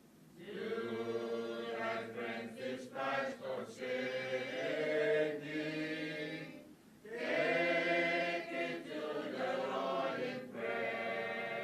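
Voices singing slow, drawn-out phrases in a chant-like, choral style, with brief pauses about seven and ten and a half seconds in.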